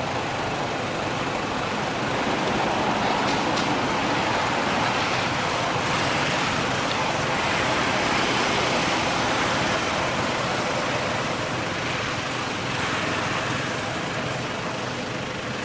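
A steady rushing noise with no distinct events, swelling a little through the middle and easing slightly towards the end.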